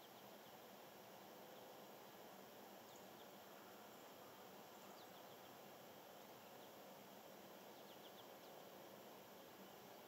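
Near silence: a steady faint hiss with a few faint, short, high bird chirps, once about three seconds in, once about five seconds in and a quick cluster of three or four about eight seconds in.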